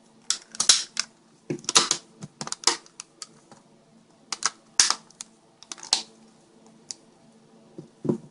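Plastic housing of a Garmin 660 GPS being pressed back together by hand: a string of irregular sharp clicks and snaps as its parts click into place.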